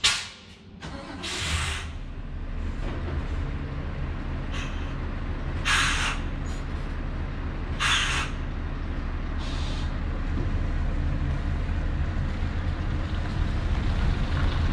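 A sharp knock like a cab door shutting, then a Scania S650's V8 diesel engine comes on about a second in and runs steadily, with three sharp air hisses from the truck's air system. The engine grows louder near the end as the truck begins to move off.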